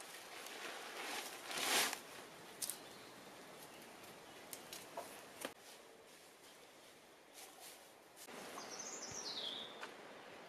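Rustling and crinkling of a plastic bag and dry straw being handled on the thatched roof, loudest about two seconds in, with a few sharp clicks. Near the end a short high bird call falls in pitch.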